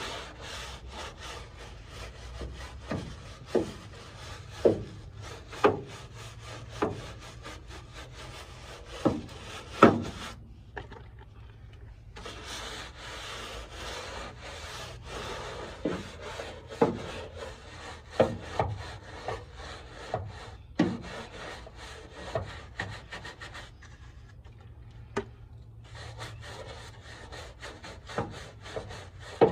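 A stiff brush scrubbing grease and grime off a car's underbody in quick back-and-forth strokes, with scattered louder scrapes. The scrubbing pauses briefly about ten seconds in and again near twenty-four seconds.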